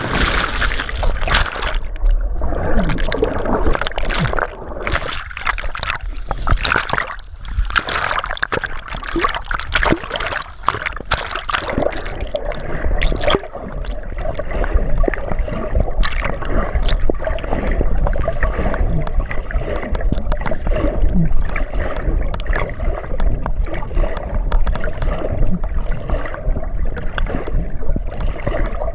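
Water sloshing and gurgling around a camera held underwater, muffled, with a low rumble and bubbles. Frequent clicks and knocks in the first half give way to a steadier rushing in the second.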